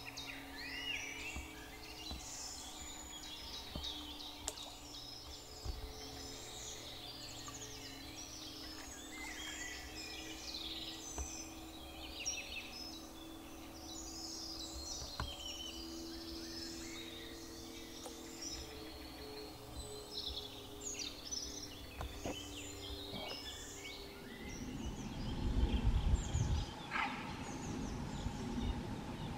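Several songbirds singing at once, a dense chorus of overlapping warbles and chirps. A low rumble comes in near the end and is louder than the birds.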